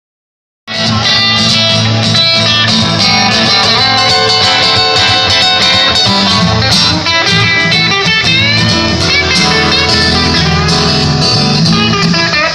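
Live guitar music: guitar strumming and picking an instrumental passage, cutting in abruptly from silence about a second in.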